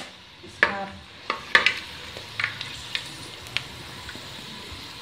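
Cloves and green cardamom frying in hot ghee with a steady sizzle, while a metal slotted spoon stirs them and clinks against the metal pot several times in the first few seconds.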